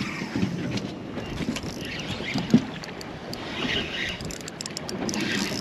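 Sea water sloshing against a small boat, with wind buffeting the microphone. One sharp knock comes about two and a half seconds in.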